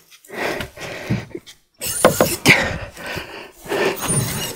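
Men straining to heave a large wooden boat over by hand: irregular grunts and hard breathing of effort, mixed with knocks and scrapes from the wooden hull.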